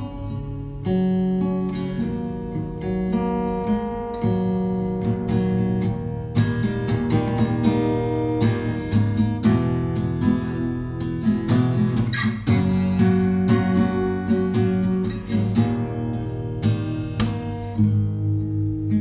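Background music: an acoustic guitar plucked and strummed.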